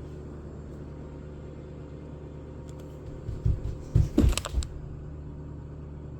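Steady low hum, with a short cluster of muffled thumps and knocks between about three and four and a half seconds in.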